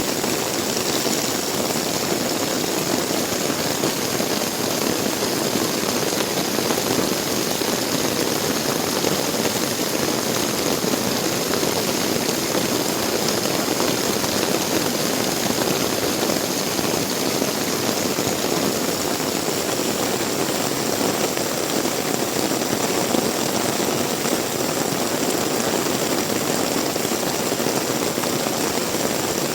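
Heavy rain pouring steadily, a dense, even hiss with no pauses.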